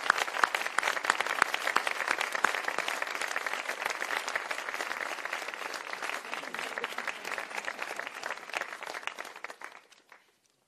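Audience applauding: dense, steady clapping that thins out and dies away near the end.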